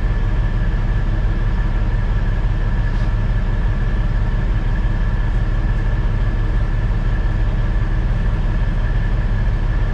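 Kenworth T800 semi truck's Caterpillar C15 diesel idling steadily, heard from inside the cab through the open window.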